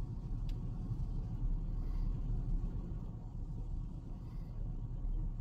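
Low, steady rumble of a fire truck's engine running, powering the water spray from the aerial ladder.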